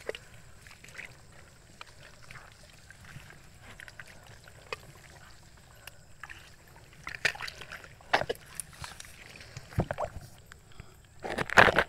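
Wet sloshing and scattered knocks of someone moving through soft mud and shallow water. They start about seven seconds in and are loudest near the end.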